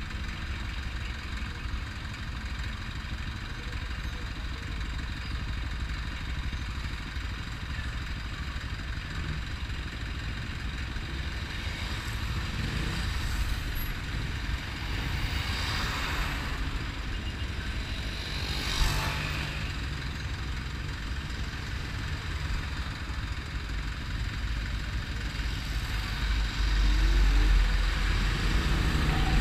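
Motorcycle engine idling in stopped city traffic, with other vehicles' engines around it. Two swells of noise from passing traffic come about halfway through. Near the end a low rumble grows louder as the traffic begins to move off.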